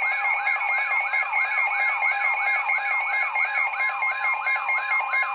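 Emergency alert tone: a loud electronic warble whose pitch sweeps repeat about three times a second. It is the attention signal that announces a tornado warning broadcast.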